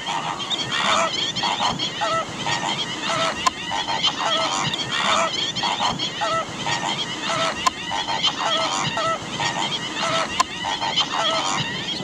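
A flock of greater flamingos honking in flight: many goose-like calls overlapping, several each second.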